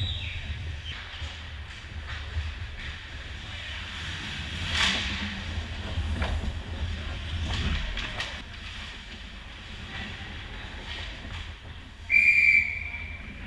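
Ice hockey play at the net: the scrape and clatter of skates and sticks on the ice over a steady low rink rumble, with a sharp knock about five seconds in. Near the end, a referee's whistle blows once, short and steady, stopping play.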